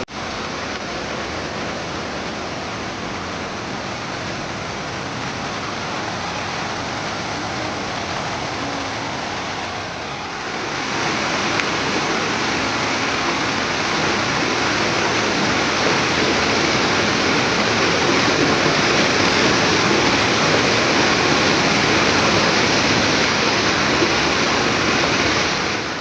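Waterfall: a steady rush of falling water that grows louder about ten seconds in.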